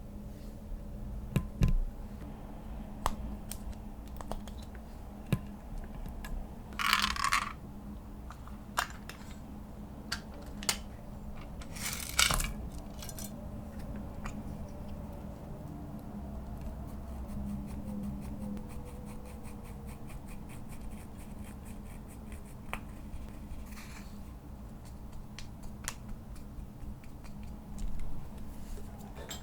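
Slime being handled and mixed by hand: scattered small sticky clicks and pops, with a few short louder squishing or scraping bursts about seven and twelve seconds in and again near the end.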